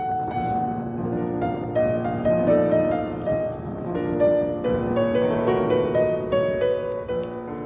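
Background music with a piano, notes changing in a melodic line.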